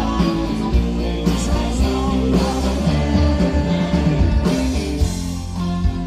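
Rock band playing live through a concert PA: electric guitars, bass and drums, with a singer's voice over them.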